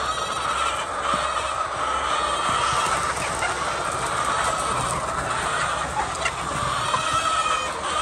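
A large flock of chickens clucking and chattering together, a steady dense din of many birds at once.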